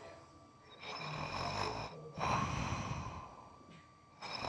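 A person snoring in sleep: a long, rattling breath about a second in, another just after two seconds, and the next beginning near the end.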